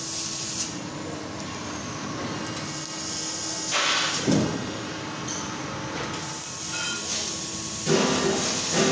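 CNC metal-cutting machine running: a steady hiss with a constant low hum, shifting about four seconds in. Music comes in near the end.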